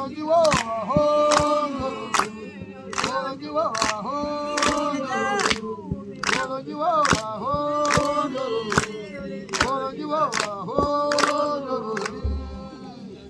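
A group of women singing unaccompanied, clapping their hands on a steady beat of a little more than one clap a second. The song and the clapping stop near the end.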